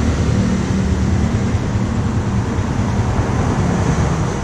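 A vehicle engine running steadily: a low hum under an even hiss.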